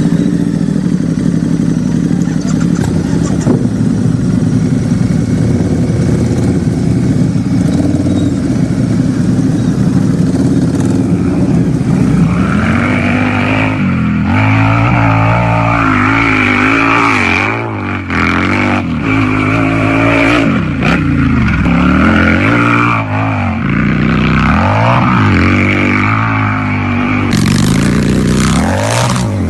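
Harley-Davidson motorcycle's V-twin engine running at a steady low speed, then revved again and again from about twelve seconds in, its pitch rising and falling with each blip of the throttle.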